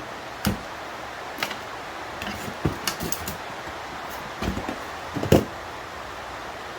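Scattered clicks and knocks of tools and small parts being handled while scrap is taken apart by hand. The loudest knock comes about five seconds in, over a steady background hiss.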